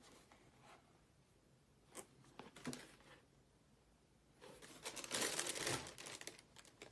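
Tissue paper in a cardboard shoebox rustling and crinkling as a sneaker is handled and laid back in it, with a few light taps of the shoe; the rustling swells loudest for a second or two about two-thirds of the way through.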